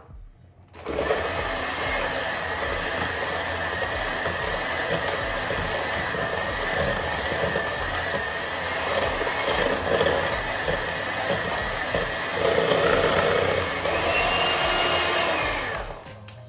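Handheld electric mixer beating butter, sugar and ground almonds in a stainless steel bowl. It starts about a second in and runs steadily with a high whine, gets louder and rises in pitch near the end, then switches off.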